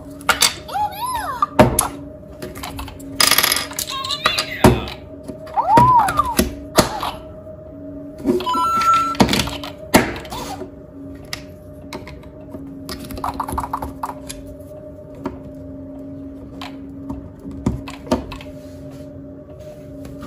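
Lego Super Mario and Lego Peach interactive figures giving short electronic chirps and jingles from their built-in speakers, among sharp plastic clicks and knocks as the figures are handled and set down on a wooden table. A steady low hum runs underneath.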